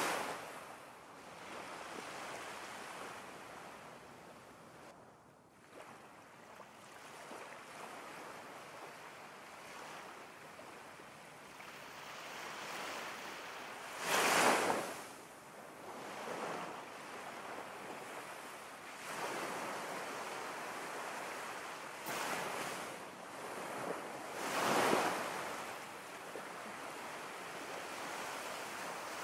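Ocean-wave ambience: a steady wash of water noise that swells into louder surges three times, at the very start, about halfway through and again later, like waves breaking.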